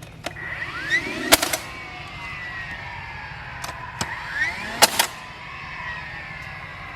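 Sharp metallic strikes from fence-building work, in two clusters each led by a brief rising whine, with fence wire ringing in falling tones afterward. A steady low engine drone runs underneath.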